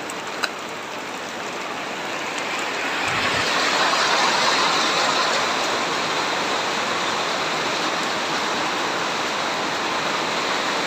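Heavy tropical rain pouring down in a dense, steady hiss that swells a few seconds in and then holds, with a single brief click near the start.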